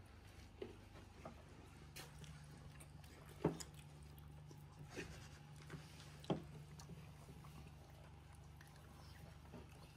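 Quiet sounds of people eating roti and curry by hand: faint chewing and a few short smacks or clicks, the two loudest about three and a half and six seconds in, over a low steady hum.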